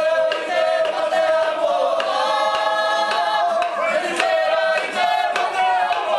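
Māori performance group of men and women singing a waiata together in unison, mostly on long held notes.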